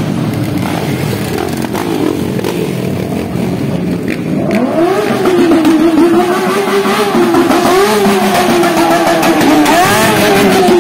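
Several motorcycles riding slowly past with engines running. About four and a half seconds in, one engine is revved up and held at high revs, its note wavering up and down and louder than the rest.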